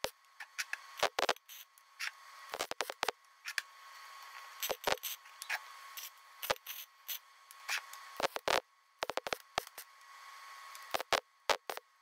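Welding arc crackling in short runs as misplaced bolt holes in a steel block are filled with weld, with sharp metallic knocks and clicks in between.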